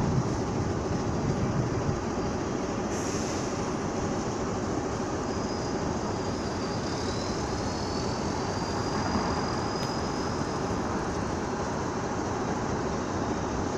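Steady rumbling noise of a train on the tracks at a railway station, with a brief hiss about three seconds in and a faint high squeal about halfway through.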